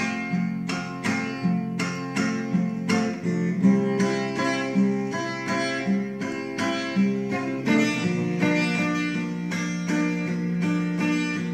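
Acoustic guitar playing an instrumental introduction: strummed chords over a picked bass line in a steady rhythm.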